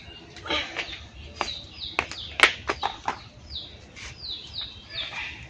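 A bird calling in series of short downward-sliding chirps, over a few sharp knocks and scuffs as pomelos are handled and set down on a concrete ledge; the sharpest knock comes about halfway through.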